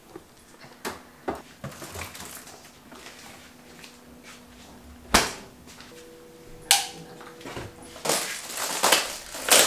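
Scattered clicks and knocks of a steel pot being lidded and set into a refrigerator, with a sharp knock about five seconds in and another near seven seconds, then a denser run of handling noise near the end.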